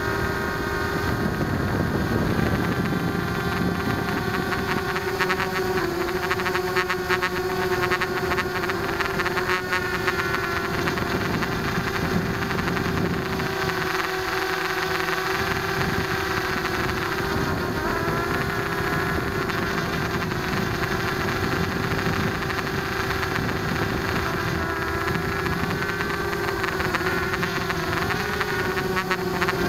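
Blade 200QX quadcopter's brushless motors and propellers whining steadily, heard from the #808 camera mounted on the aircraft, with the pitch shifting slightly as the throttle changes.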